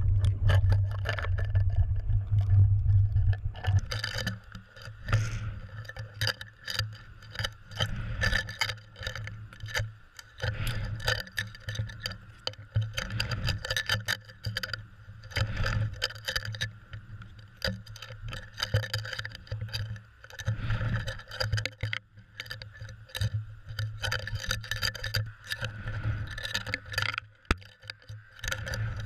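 Underwater sound heard through the waterproof housing of a GoPro Hero 2 mounted on a cod jigger as it is jigged: a muffled rush of water with many quick clicks and knocks. A low hum is strong for the first few seconds, then drops away.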